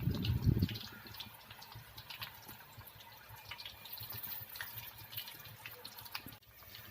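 Marinated, cornflour-coated chicken pieces deep-frying in hot oil, sizzling with many scattered small pops and crackles. A brief low thump at the start.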